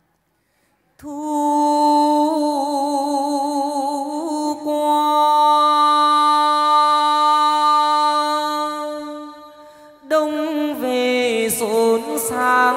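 Chầu văn (hát văn) ritual singing. A long sung note wavers, then holds steady and fades out after about eight seconds. About ten seconds in, a male singer starts a new phrase with sliding ornaments over plucked notes of a đàn nguyệt (moon lute).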